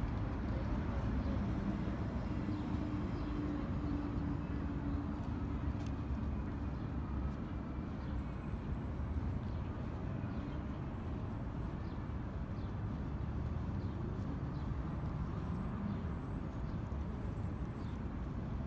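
Outdoor city background: a steady rumble of traffic, with a vehicle's low engine hum standing out for the first few seconds.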